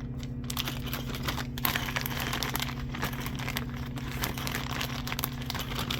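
Plastic packaging of PEX clamp rings crinkling and rustling as it is handled, with small irregular clicks of the metal rings.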